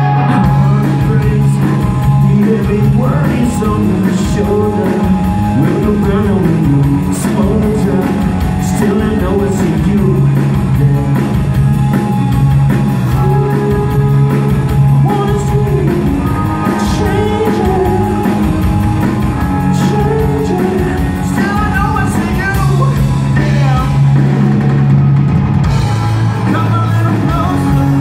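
Live rock band playing a song: two electric guitars, bass guitar and drum kit, with a man singing lead.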